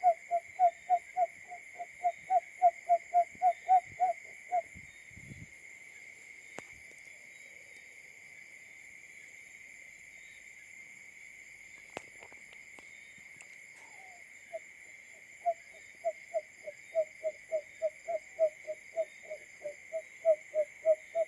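Barred buttonquail male call: a rapid series of short, low hooting notes, about three or four a second. The series stops about four seconds in and starts again about fourteen seconds in, over a steady faint high-pitched background hum.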